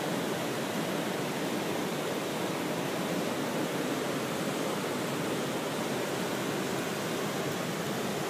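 Steady rush of water from river rapids at a falls.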